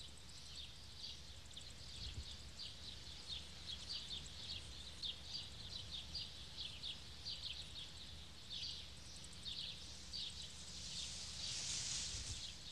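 Faint outdoor ambience of small, high chirps repeating about twice a second. A soft hiss swells briefly near the end.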